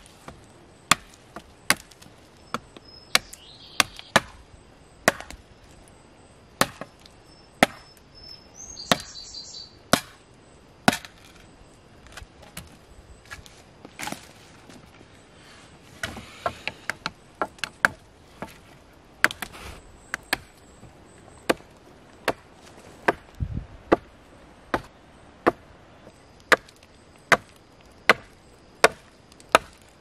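A large curved knife chopping dry tree branches: a long run of sharp wooden chops, mostly one or two a second, with a lull of a few seconds about halfway through and a quick flurry just after it.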